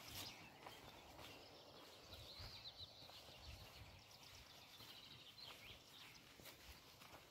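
Near silence of open pasture, with faint songbird chirping in the distance: a quick run of high, repeated notes about two seconds in, lasting a few seconds.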